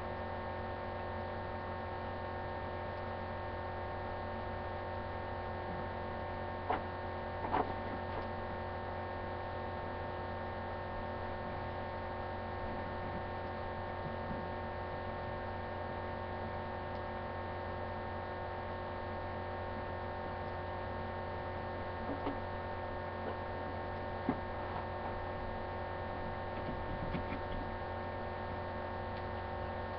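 Steady electrical hum made up of several fixed tones, with a few faint short taps about a quarter of the way in and again about three quarters of the way in.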